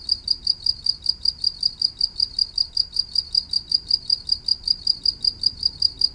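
A cricket chirping steadily: short, high-pitched chirps repeating evenly about five or six times a second.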